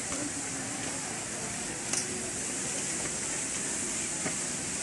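Steady hiss of outdoor background noise with faint distant voices, and a single click about two seconds in.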